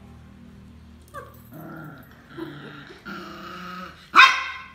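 Small puppy growling in a series of short, low growls from about a second in, then letting out one loud, sharp yap near the end: a young puppy putting on an aggressive, challenging display.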